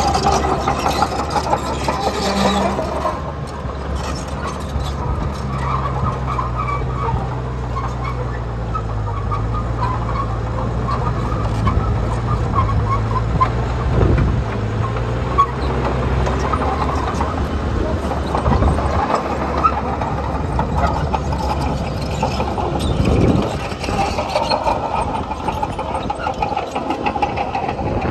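Crawler bulldozer working: its diesel engine runs steadily, changing pitch with load as it pushes soil, with scattered high squeaks from the tracks.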